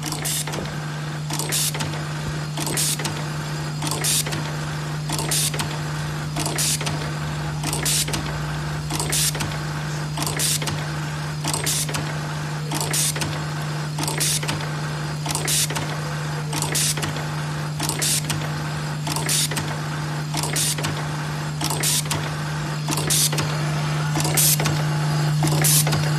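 ZOYER automatic button-sewing machine at work: its vibratory bowl feeder gives a steady hum while a short burst of hissing noise repeats evenly about every second, once per button fed and sewn.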